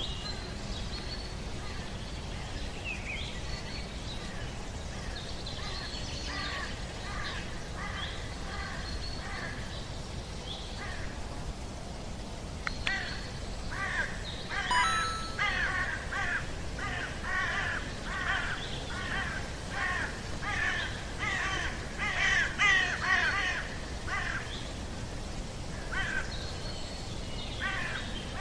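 A roosting colony of egrets calling: many short, harsh croaking calls, scattered at first, then thick and overlapping from about halfway through, over a steady low rumble.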